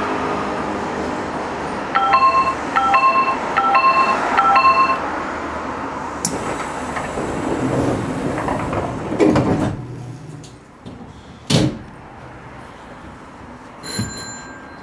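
Train departure chime at a stopped commuter train, repeating about twice a second for a few seconds. The train's sliding doors then close with a rush and a sharp thud, and a short high beep follows near the end.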